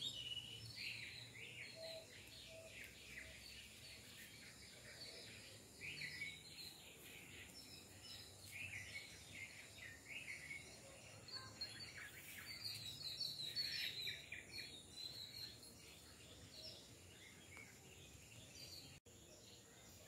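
Birds chirping and calling, faint, in many short high chirps that come in clusters, busiest near the start, in the middle and around two-thirds of the way through.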